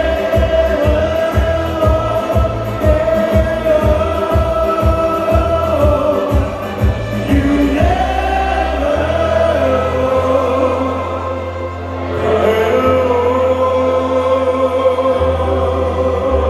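Music with singing: long held vocal notes over a steady beat with bass. The drums drop out about eight seconds in, leaving held bass notes under the voices.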